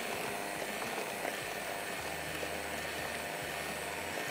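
Electric hand mixer running steadily, beating sugar into melted chocolate and butter to dissolve the sugar grains.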